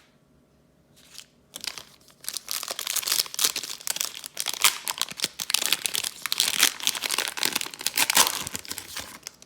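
A 2018 Contenders football card pack's plastic wrapper being torn open and crinkled in the hands, starting about a second and a half in with dense crackling that goes on for about seven seconds.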